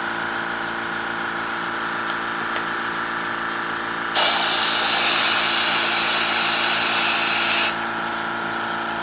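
A steady mechanical hum runs throughout. About four seconds in, a blast of compressed air from an air hose hisses loudly for about three and a half seconds, blowing through the countertop dishwasher's drain line to clear it, then cuts off suddenly.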